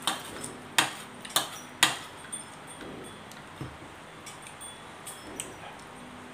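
Chopsticks and a spoon clinking against ceramic noodle bowls: four sharp clinks in the first two seconds, then lighter scattered taps.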